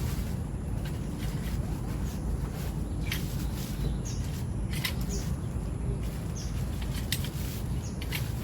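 Steady low rumble with scattered sharp taps and knocks at irregular intervals, and a few faint short high chirps.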